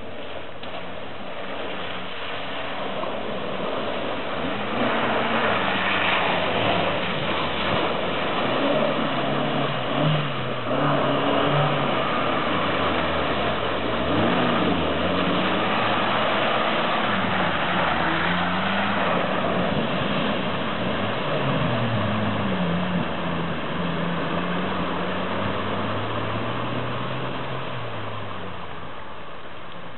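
Small Suzuki SJ/Santana 4x4 engine working through a deep, muddy flooded track, its revs rising and falling, with water splashing and churning around the wheels. The sound builds after a few seconds and eases off near the end.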